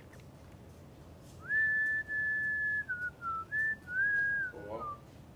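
A person whistling a short tune: a few held notes that step down and back up, starting about a second and a half in and ending with a short downward slide.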